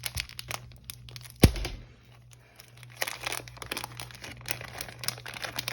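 Packaging of a 7x7 speed cube being opened by hand: crinkling and rustling with small clicks, and one sharp knock about a second and a half in.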